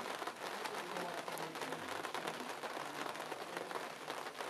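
Steady rain pattering, many small drops ticking, with faint voices in the background.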